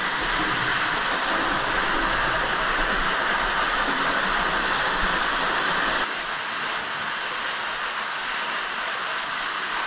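Steady rushing of a small creek cascading down a narrow rock slot; it drops a little in level about six seconds in.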